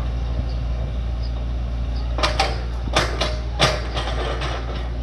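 Excavator engine running steadily with a low rumble, and a handful of sharp knocks about halfway through.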